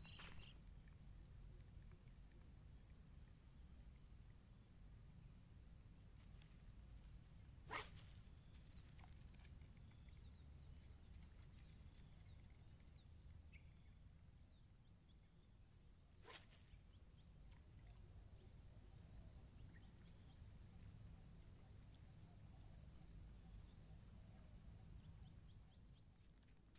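Steady high-pitched insect chorus, several shrill bands held without a break, over a low rumble. Two sharp clicks about eight and sixteen seconds in. The chorus cuts off just before the end.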